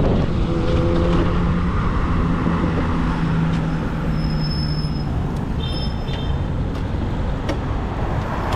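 Road traffic: vehicle engines and tyres running, with a low steady engine drone through the first half.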